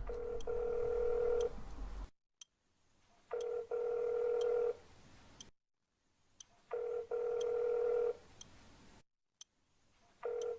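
Ringback tone of an outgoing phone call waiting to be answered. A steady mid-pitched tone rings four times, about every three and a half seconds, each ring about a second and a half long with a brief break just after it starts.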